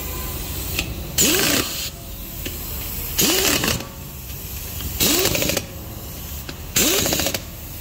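Impact wrench running lug nuts onto a car wheel: four short bursts of rattling hammering, roughly one every two seconds, one for each nut, with the motor pitch rising and falling within each burst.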